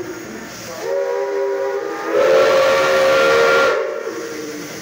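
Er-class steam locomotive's whistle blowing two blasts, a short one about a second in and then a longer, louder one, over hissing steam: the signal for the train's departure.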